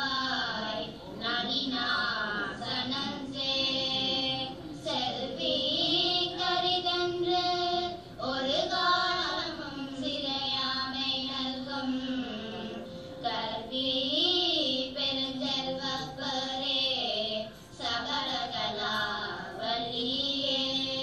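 A group of young girls singing a Tamil devotional hymn together into a microphone, in long held notes that bend up and down, with short breaks between phrases.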